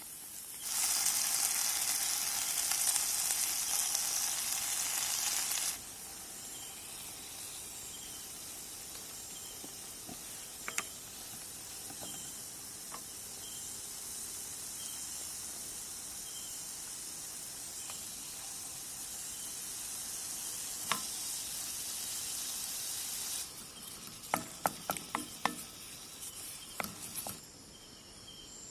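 Egg curry frying in a pan on a portable butane camping stove: a loud sizzle for the first five seconds, then a steady, quieter sizzle. Near the end comes a run of clicks and scrapes from stirring in the pan, and then the sizzle stops. Faint crickets chirp throughout.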